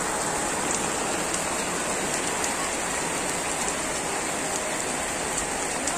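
Heavy rain pouring steadily onto a wet road, with scattered sharp drop hits close by.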